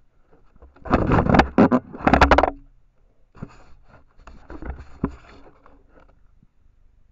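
Trail camera being tugged by its strap, rubbing and scraping against its pole right at the microphone. There are two loud bursts of scraping in the first few seconds, then quieter scraping with a sharp knock about five seconds in.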